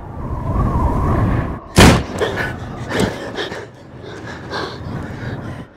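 A loud thump about two seconds in, with low rumbling before it and scattered light knocks after.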